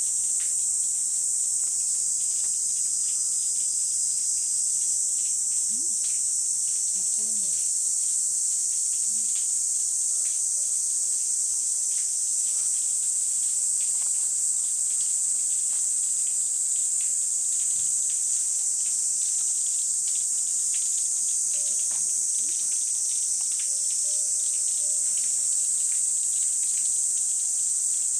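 Cicadas singing in a steady, unbroken high-pitched drone.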